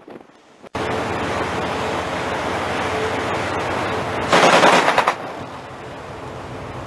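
Steady rush of wind and sea noise that cuts in suddenly about a second in. Just past four seconds comes a burst of rapid machine-gun fire, under a second long and the loudest sound: warning fire aimed at a vessel's hull.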